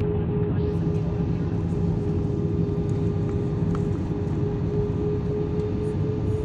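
Steady jet engine drone and airflow noise heard inside the cabin of an Airbus A320-family airliner on its descent, with a low rumble and a steady hum that rises slightly in pitch near the end.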